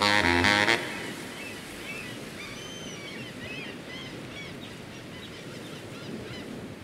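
The intro music ends in the first second. Then an outdoor noise bed with many short, high chirping bird calls follows.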